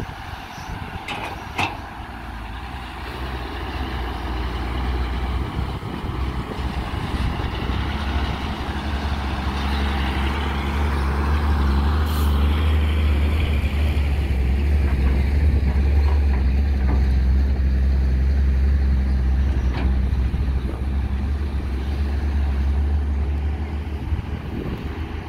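Heavy diesel engine of a Cat 320 hydraulic excavator running under load as it digs and loads a dump truck: a steady low drone that grows louder over the first dozen seconds. A rushing hiss comes around the middle as a bucket of soil is dumped into the truck bed.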